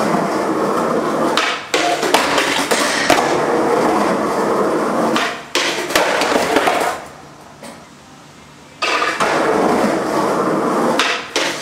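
Skateboard wheels rolling on concrete in stretches that stop and start, with a lull of about two seconds past the middle and a few sharp clacks of the board.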